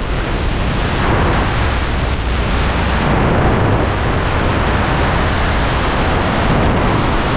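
Freefall wind blasting over a helmet-mounted GoPro's microphone: a loud, steady rush of buffeting air.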